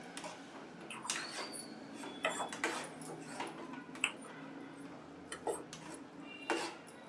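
Metal spatula scraping and clinking against a kadhai as moist chicken mince is stirred, in irregular strokes roughly once a second.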